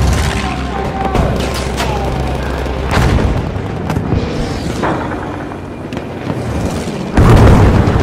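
Booming, rumbling sound effects over music, with several sharp hits and the loudest boom about seven seconds in.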